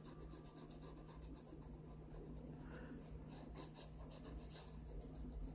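Faint scratching of a No. 2 graphite pencil on drawing paper, in quick repeated short strokes, over a low steady hum.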